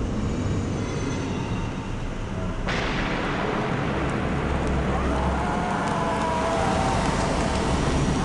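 A car approaching and passing close by: steady engine and tyre noise that suddenly grows fuller and brighter about three seconds in.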